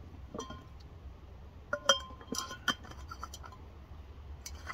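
Sharp metallic clinks and clicks from an Optimus liquid-fuel bottle and its pump being handled. Several ring briefly, and the loudest come about two seconds in.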